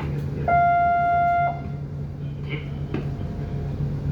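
A horn sounds one steady blast of about a second, over a continuous low engine hum.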